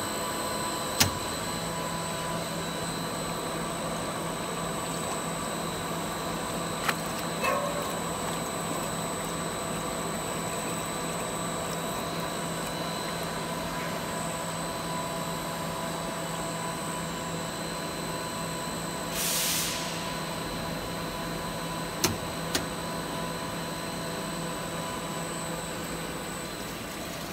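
Plastic tubing extrusion line running at its set screw speed: a steady machine hum with several constant tones. A few sharp clicks and one short burst of hiss about two-thirds of the way through break the hum.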